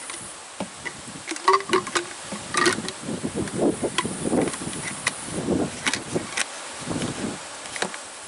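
A plastic flavor-infusion water bottle being handled as its screw lid and flavor tank are twisted: scattered clicks, taps and scraping of plastic parts and threads.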